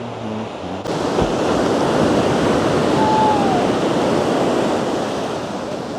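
Ocean surf washing on the beach, a steady rush of noise that steps up louder about a second in. About halfway through, a single short high tone that dips at its end sounds over the surf.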